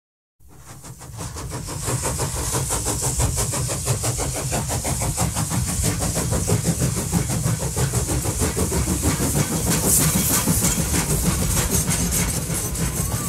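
A machine running with a fast, even clatter over a low rumble and a hiss. It starts suddenly about half a second in and builds to full loudness over the next second or two.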